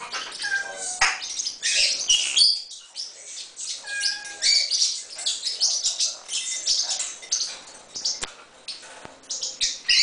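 Pet parrots chirping in quick, high calls, with a few sharp clicks mixed in.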